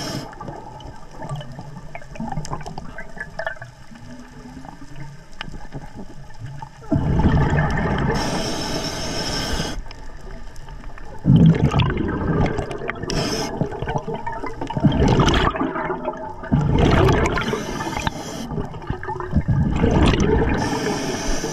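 Underwater recording of a diver's breathing: loud rushes of exhaled bubbles recurring every three to four seconds from about seven seconds in, with quieter water noise between and during the first part.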